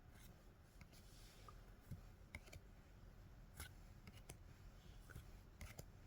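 Faint, scattered light clicks and ticks of Pokémon trading cards being handled and flipped through, over near-silent room tone.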